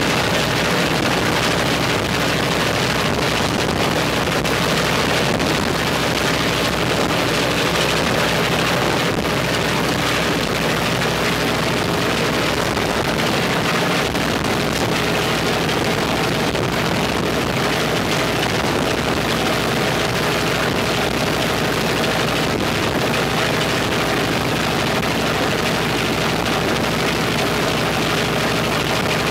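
Left engine of an Ilyushin Il-14T, a Shvetsov ASh-82T fourteen-cylinder twin-row radial, running steadily at an even speed.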